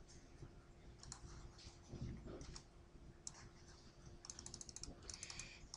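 Faint clicks from a computer mouse and keyboard, scattered at first, then a quick run of clicks about four seconds in.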